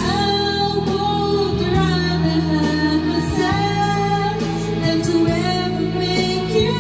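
A woman singing karaoke into a handheld microphone over a backing track played through a portable party speaker. She holds long notes that bend between pitches.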